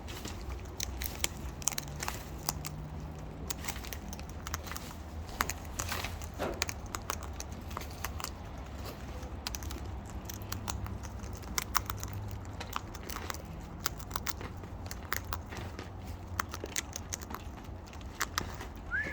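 A bird pecking at and crunching food with its beak: many irregular sharp clicks and crackles.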